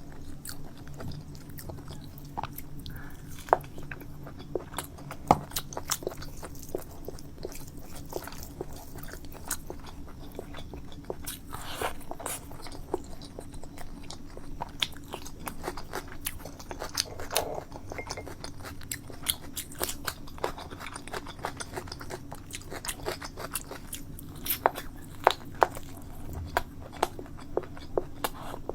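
A person eating close to the microphone: chewing and biting, with many short, sharp mouth clicks and snaps spread throughout, coming more thickly near the end.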